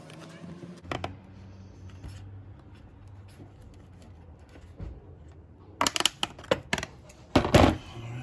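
Plastic clatter and sharp knocks as the new coolant reservoir and its hoses are worked into place by hand under the hood, with a quick run of knocks in the last few seconds.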